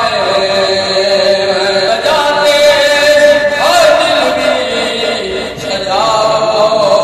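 A man chanting an Islamic devotional recitation into a microphone, holding long notes that bend and slide in pitch, with no instruments.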